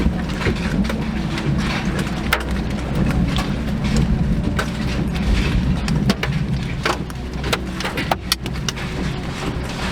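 Steady low rumble of a moving vehicle, with scattered sharp ticks and knocks throughout.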